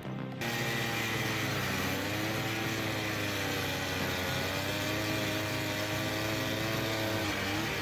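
An engine runs steadily from about half a second in, starting abruptly, its pitch drifting gently up and down.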